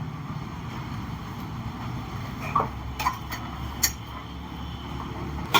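Metal parts and hand tools clinking sharply a few times during engine reassembly, the loudest clink near the end, over a steady low rumble.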